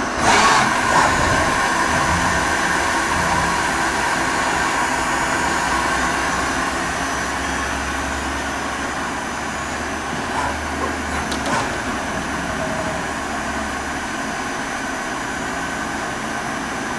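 YCM Supermax vertical machining center running a program in the air without cutting: a steady mechanical whine with several high tones from the spindle and axis drives. A low hum comes in for several seconds in the middle and then stops, and two faint clicks come about two-thirds of the way through.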